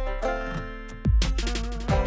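Background music: an instrumental track with guitar over a steady beat.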